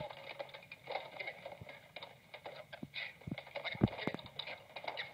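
Scuffling: an irregular jumble of knocks, bumps and shuffling as several people jostle one another, with one louder thump a little before four seconds in.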